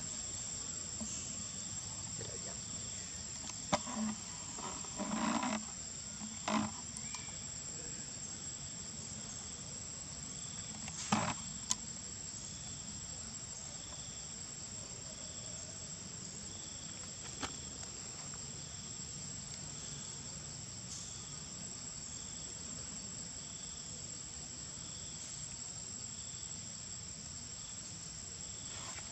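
Insects droning outdoors: a steady high-pitched whine, with a second chirp pulsing about once a second. A few short clicks and rustles break in during the first twenty seconds, the sharpest about eleven seconds in.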